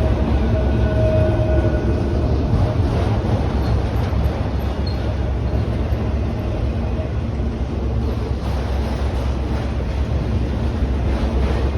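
Freight train of autorack cars rolling past at speed: a steady rumble of wheels on rail with wind buffeting the microphone. A faint thin whine is heard over it for the first couple of seconds.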